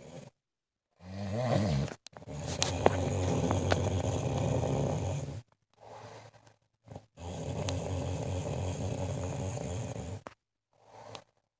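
A woman snoring in her sleep: two long snores of about three seconds each, plus a shorter one and a few faint short ones, separated by gaps of complete silence.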